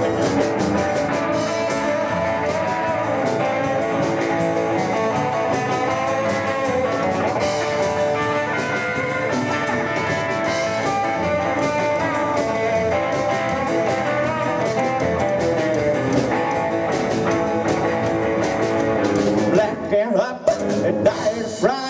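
Live rockabilly band playing an instrumental break: electric guitar taking the lead over double bass, drums and rhythm guitar. Near the end the playing turns choppy, with short gaps.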